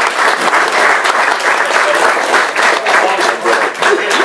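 Audience applauding: dense, steady clapping from many hands, with a few voices near the end.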